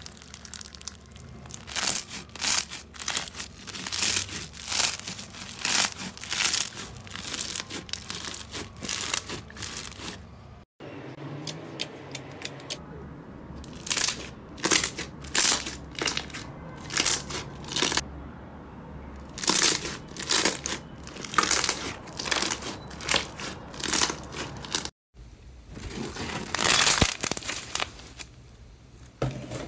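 Hands squeezing and pressing slime, making repeated short crackling, popping squelches. First comes a blue slime packed with small beads, then a glossy green slime, then a clear slime stretched over a bowl.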